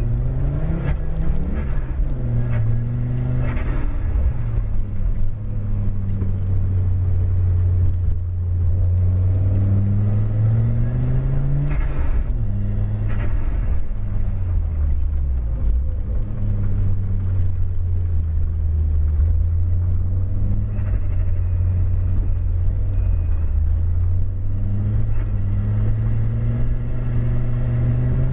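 Audi car's engine heard from inside the car while driving, the revs rising and falling with the throttle. The pitch climbs, drops sharply at a gear change about twelve seconds in, and climbs again near the end.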